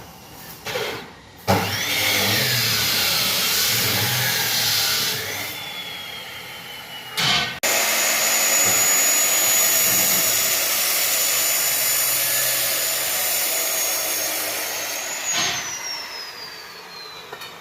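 Power tool running with a loud rushing noise and a high steady whine. It starts sharply, cuts out briefly partway through, then runs again; near the end the whine falls in pitch as it winds down.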